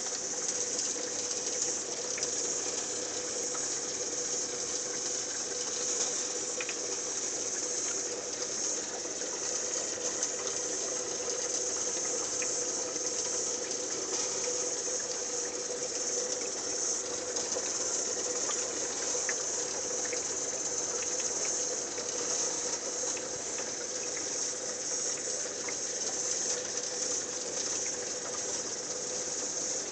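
Aquarium sponge filter running: a steady hiss of water and bubbles with faint scattered ticks, over a steady hum.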